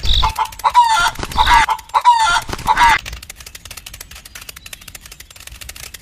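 A run of short animal calls, about five in the first three seconds, then quieter fine clicking.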